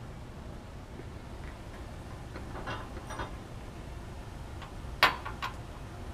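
Lab glassware being handled and set down on a benchtop: a few soft handling noises, then a sharp glass clink about five seconds in followed by two lighter taps.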